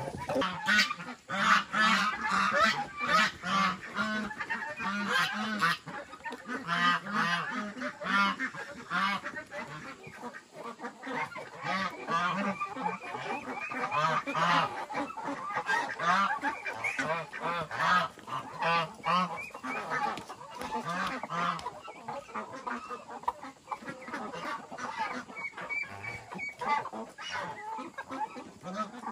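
Farm fowl calling, many calls overlapping with no break.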